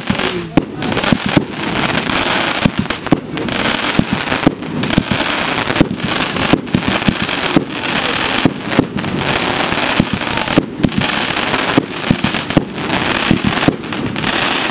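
Fireworks going off in a continuous barrage, shells launched from the ground and bursting overhead. Sharp bangs come a few times a second over a steady crackle.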